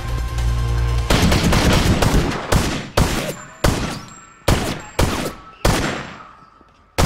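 Pistol shots in an echoing indoor firing range. After about a second of music, a rapid string of shots comes, followed by seven single shots about half a second to a second apart, each with a long reverberant tail.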